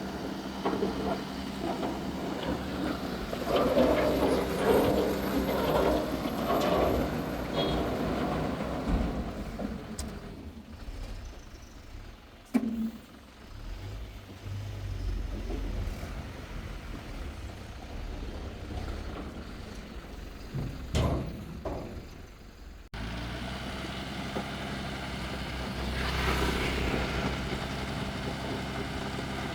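Diesel engine of a JCB excavator running and rising and falling with load as it works, with a sharp knock about twelve seconds in and another pair of knocks near twenty-one seconds. The engine sound changes abruptly about twenty-three seconds in.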